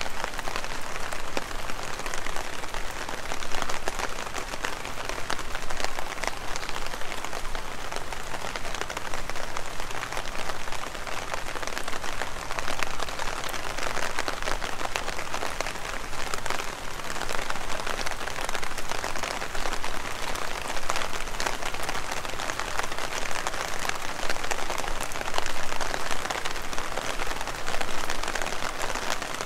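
Heavy rain falling steadily: a dense, even patter of many drops.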